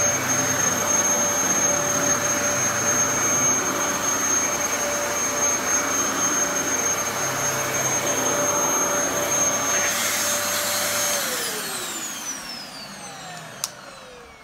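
Refurbished Dyson DC14 Animal upright vacuum cleaner running steadily with a high motor whine. About eleven seconds in it is switched off and the motor winds down, its pitch falling as it fades, with a single click near the end.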